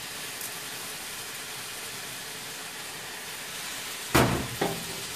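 Rice and radicchio sizzling in a very hot aluminium pan, a steady even hiss. About four seconds in, a wooden spatula knocks against the pan twice as the stirring begins.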